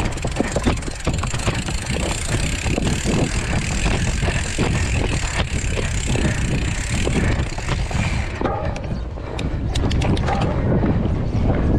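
Mountain bike ridden fast over rough ground: wind buffeting the microphone, with tyres crunching and the bike's frame and parts rattling over bumps. The high hiss drops away about eight seconds in, while the rumble and knocking carry on.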